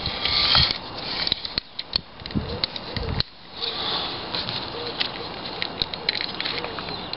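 Scattered close clicks and rustling as a steel tape measure is handled against a branch.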